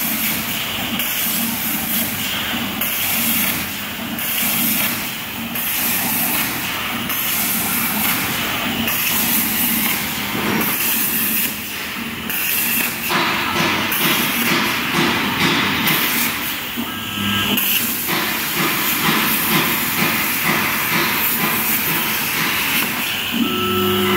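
CNC plasma cutter's torch, running at 63 A, cutting carbon steel plate: a loud, steady hiss of the plasma arc and its air flow, changing somewhat in tone about halfway through.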